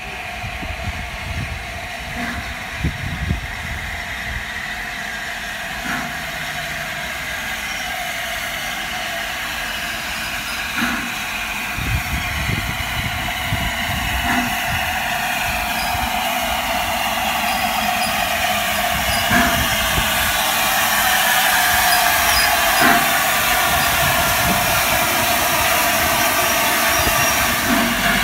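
LNER A4 Pacific steam locomotive 60009 Union of South Africa approaching with its train, growing steadily louder as it nears. A hiss of steam builds over the last third, with a few scattered knocks along the way.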